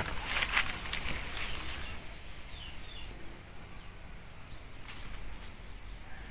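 Rustling and crackling of leaves as a sprig of green mangoes is handled, fading after about a second and a half into quiet outdoor ambience with a few faint bird chirps.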